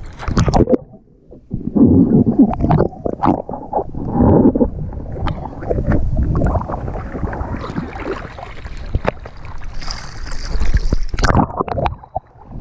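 Seawater sloshing, splashing and gurgling around a waterproof action camera held at the surface, in irregular surges with sharp clicks. The sound goes muffled when the camera dips under.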